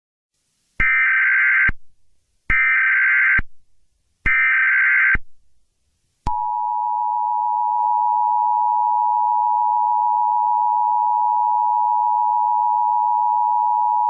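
Emergency Alert System tones: three short bursts of SAME digital header data, each about a second long, then from about six seconds in the steady two-tone EAS attention signal (853 and 960 Hz).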